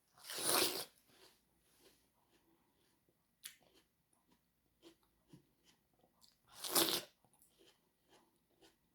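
A person biting into fresh watermelon close to the microphone: two loud crunching bites, one right at the start and one about seven seconds in, with faint chewing clicks between them.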